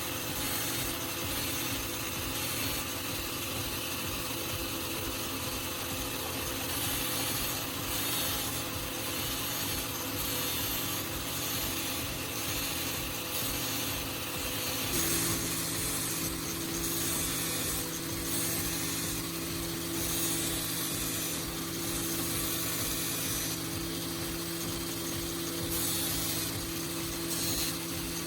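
Angle grinder running steadily, its abrasive wheel grinding a steel drill bit held against it, with a grinding hiss that swells and fades as the bit is pressed on. The motor's hum shifts about halfway through.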